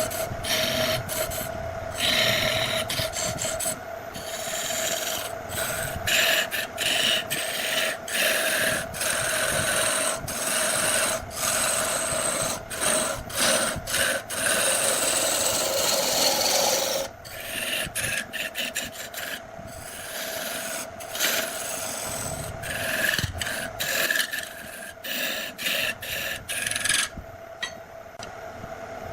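Wood lathe running with a steady hum while a turning tool scrapes and cuts the spinning wood. The scraping breaks off briefly many times and fades near the end, leaving the hum.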